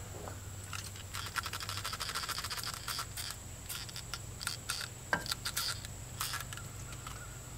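Hand wrench working a hydraulic hose fitting on a backhoe: a quick run of metallic clicks for about two seconds, then scattered clicks and scrapes.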